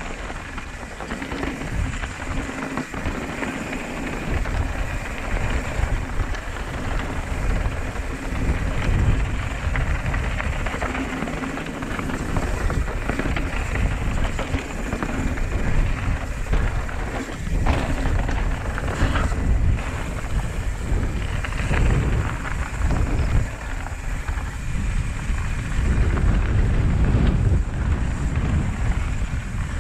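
Wind rushing over the microphone and mountain-bike tyres rumbling over a rough dirt trail on a fast descent, with scattered knocks and rattles from the bike over bumps.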